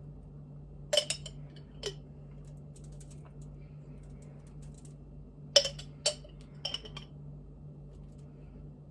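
Metal spoon and dishes clinking while pizza sauce is spooned out: two sharp clinks about a second apart, then a quick cluster of clinks near the middle, over a faint steady low hum.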